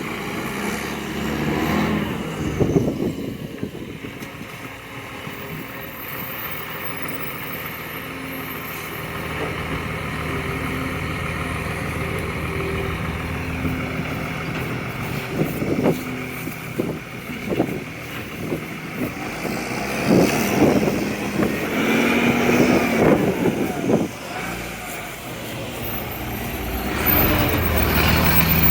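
Diesel engine of a recycling garbage truck with an exhaust leak, running steadily. Bursts of knocking and clattering come a little past the middle and again some seconds later, and the engine grows louder near the end.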